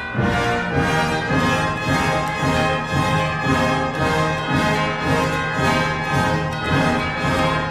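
Background orchestral music led by brass, with a steady pulsing beat.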